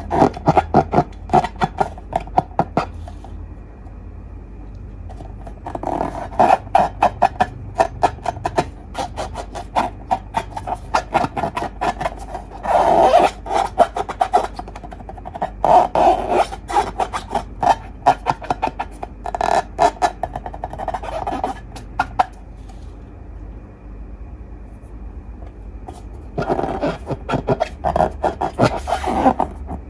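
Sticky, crackling handling of slime: dense runs of small wet clicks and pops in spells of a second or three, with quieter pauses between them.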